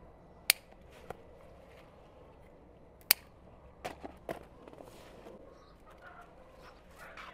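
A few sharp clicks or snaps: two loud ones about half a second and three seconds in, a softer one near one second, and a cluster of smaller ones around four seconds, over faint rustling.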